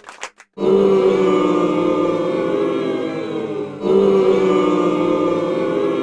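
A choir-like chord of several sung voices, held for about three seconds and then played again, beginning about half a second in after a few short clicks.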